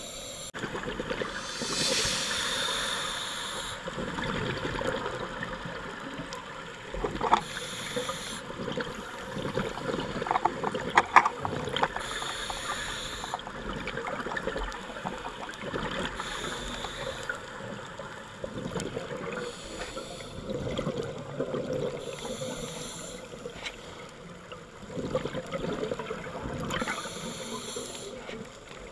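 A scuba diver's breathing heard underwater through the camera housing: bubbly regulator exhaust hisses about every four to five seconds over a steady watery rumble, with a few sharp clicks about a third of the way through.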